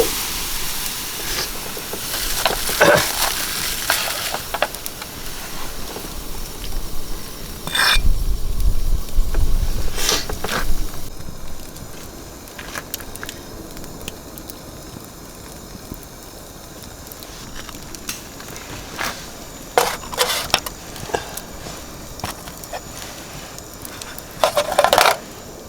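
Firewood burning in a Belmont TOKOBI mesh fire pit, crackling with scattered louder bursts. A gust of wind rumbles on the microphone about eight seconds in, and the fire is quieter through the middle.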